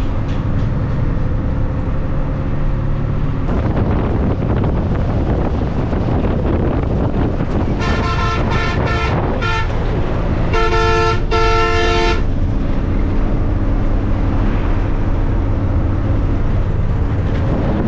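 Bus engine and road noise running steadily, with a horn honking four short times about eight seconds in, then two longer blasts around eleven seconds in.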